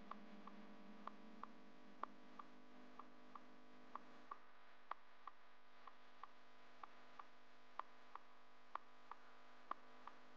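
Near silence with a faint steady electrical hum and soft, regular ticking: two quick ticks about a third of a second apart, repeating about once a second.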